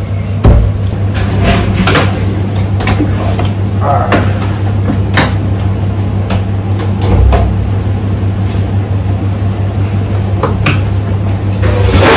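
Steady low hum of commercial kitchen equipment, with scattered metal knocks and clatter of pans, lids and utensils.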